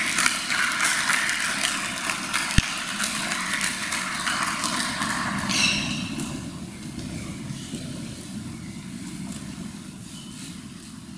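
Audience applauding, the clapping dying away over the second half to a quiet hall murmur.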